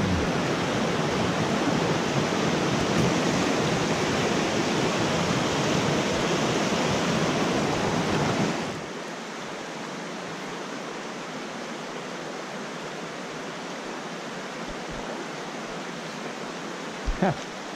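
Mountain creek water rushing over rocks in shallow riffles, a steady hiss. The rush is louder until about halfway, then drops to a quieter, softer flow, with two brief knocks near the end.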